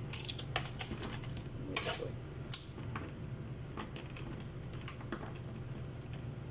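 Scattered light clicks and rattles of test leads and connectors being handled and plugged into an electrosurgical unit, over a steady low hum.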